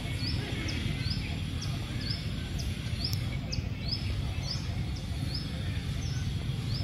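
A bird repeating a short high chirp about twice a second, over a steady low rumble.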